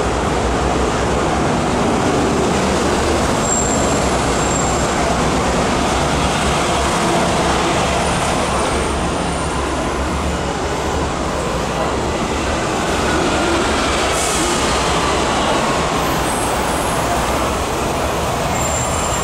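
Hong Kong MTR Kwun Tong Line metro train running at speed, heard from inside the carriage: a steady rumble of wheels on rail with running noise, and a faint whine falling in pitch about two-thirds of the way through.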